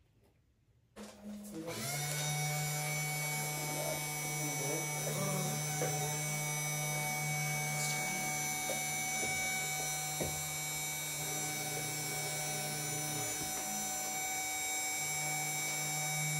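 SainSmart 3018-PROVer V2 desktop CNC router's spindle motor starting about a second in and then running steadily with a steady whine, engraving its first test job into a wooden board. A lower motor hum shifts and briefly drops away near the end as the axes move the bit.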